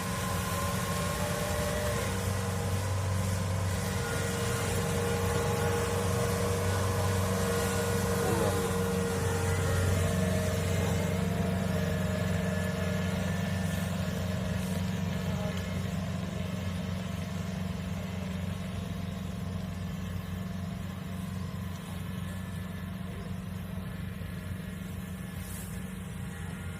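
Diesel engine of a Kubota DC70 Plus combine harvester running steadily while the machine pushes straw into a ditch. There is a steady whine over a deep drone. It is loudest around the middle and fades gradually toward the end.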